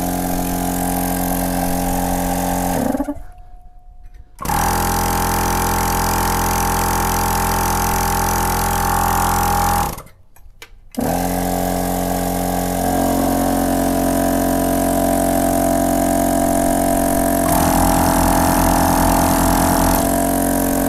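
Two off-road portable air compressors, a Gobege and an All-Top, running in turn as a steady motor-and-piston drone. It cuts off about three seconds in, starts again at four and a half seconds, cuts off again around ten seconds, then runs once more, its pitch shifting around thirteen seconds and a pulsing warble appearing near the end. Side by side they sound about the same, with the Gobege a little lower in tone.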